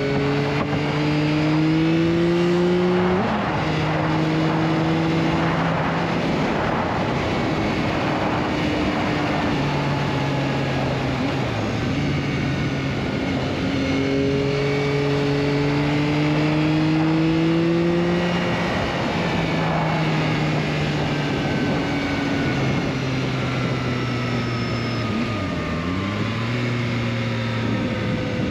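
Yamaha XSR900's three-cylinder CP3 engine heard from the rider's seat while riding. The engine note climbs gradually and drops at each gear change, several times, with a brief dip and pick-up near the end.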